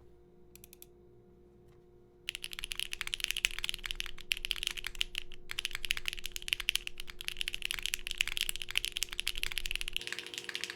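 Bakeneko65 mechanical keyboard with stock HMX Perky Gaming switches, a POM plate and GMK Lavender keycaps being typed on quickly and continuously. The typing starts about two seconds in as a dense run of keystroke clacks.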